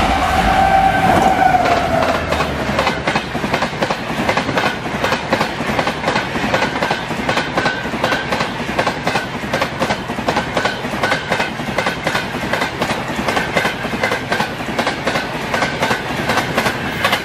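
WAP-7 electric locomotive passing at speed, its horn sounding and dropping in pitch as it goes by in the first two seconds. Then the LHB coaches of the Rajdhani express rush past, their wheels clattering over the rail joints in a fast, even rhythm.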